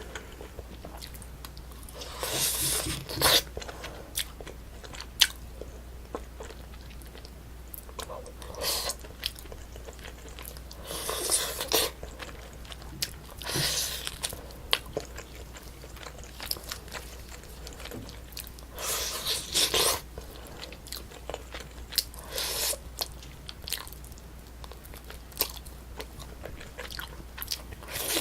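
Close-miked eating sounds of a person chewing braised spicy chicken: bouts of wet chewing and mouth noise every few seconds, with scattered small clicks between them.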